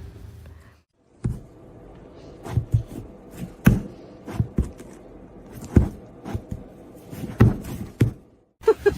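A series of irregular knocks and taps, about one or two a second, over a faint steady hum.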